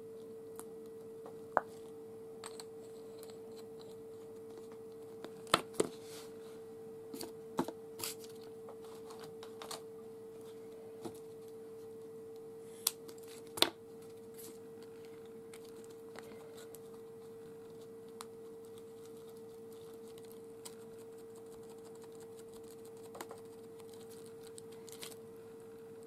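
Scattered clicks, taps and rustles of art supplies being handled on a craft table (a paint tube, a plastic stencil, a sponge), over a steady hum.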